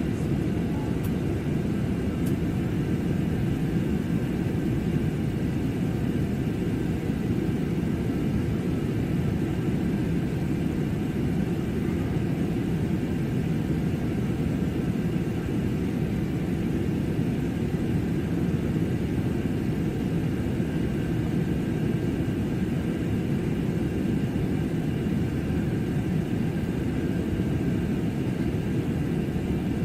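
Steady jet airliner cabin noise in calm cruising flight: an even, low rumble of engines and airflow, with a faint high hum above it.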